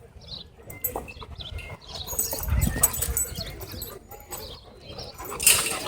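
Dogs playing and scuffling, with a dog's vocal sounds, a low rumble a little past the middle and a brief loud burst near the end; short high chirps recur throughout.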